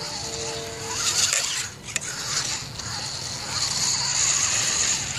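Homemade radio-controlled 4x4 truck's small electric motors and gears whirring as it drives over grass and leaves, in spurts as the throttle is worked, with the whine swelling about a second in and again over the last second and a half.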